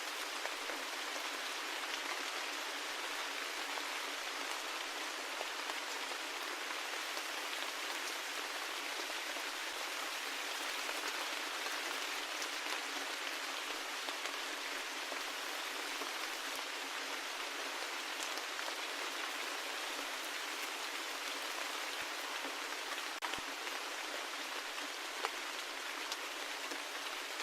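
Steady rain falling, an even hiss with scattered faint drop ticks and one slightly sharper tick near the end.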